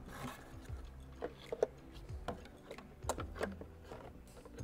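Scattered light plastic clicks and knocks, about half a dozen: a Noble TAS LED tail light's wiring connector being plugged into the car's harness and the tail light housing being set back into its opening in the body.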